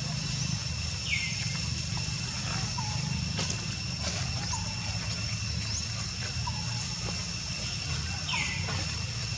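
Outdoor forest ambience: a steady high-pitched drone and a low rumble, with two short falling chirps, one about a second in and one near the end, and a few faint small calls between.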